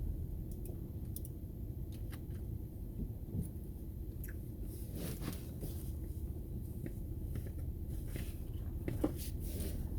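Low steady rumble of a vehicle heard from inside, with scattered light clicks and crackles. The crackles come in small clusters about five and nine seconds in.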